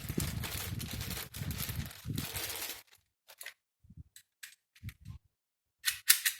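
Rustling handling noise of a stainless steel mortise door lock, a few faint metallic clicks, then near the end a rapid run of sharp clicks, about five a second, from the lock mechanism being worked.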